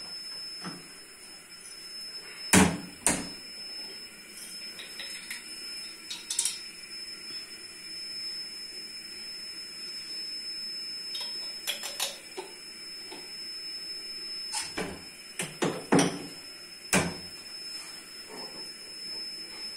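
Glass and plastic spice jars knocking and clinking as they are handled in a wooden kitchen cabinet and set down on a stone counter, about a dozen scattered knocks and clicks, the loudest about two and a half seconds in and a cluster near the end.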